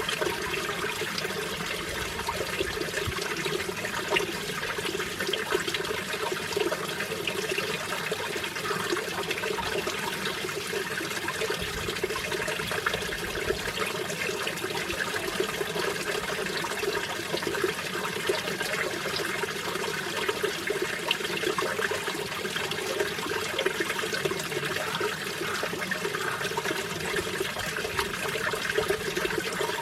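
Mountain stream water flowing steadily over rocks, a continuous babbling rush with small splashes throughout.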